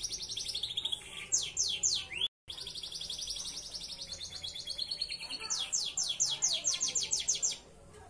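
Belgian Bossu canary singing: fast, high trills broken by runs of quick downward-sweeping notes, the song stopping shortly before the end.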